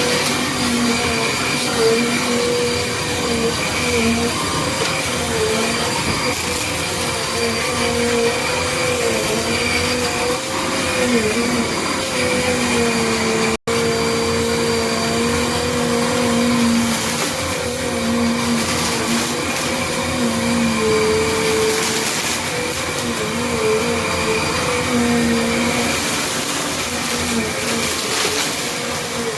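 Small Bissell Compact Turbo upright vacuum running over a gritty mess test: a steady motor whine that wavers in pitch as it works, over a rushing airflow and brushroll noise. It has a few louder gritty rushes later on, and the sound drops out for an instant about halfway.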